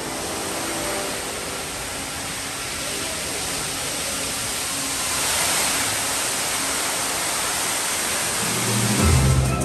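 Water jets of a musical fountain spraying up and splashing back into the pool, a steady rushing hiss that swells about halfway through. Music returns just before the end.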